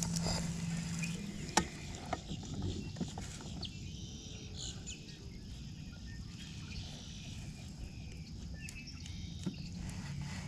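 Quiet marsh ambience with birds chirping over a faint hiss. A low steady hum stops about a second in, and a single sharp click follows shortly after, with a few fainter clicks from the fishing reel and boat.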